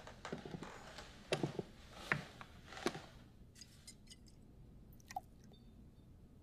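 Quiet foley: a few soft knocks and rustles in the first three seconds, then light high clicks and a short ringing ping about five seconds in.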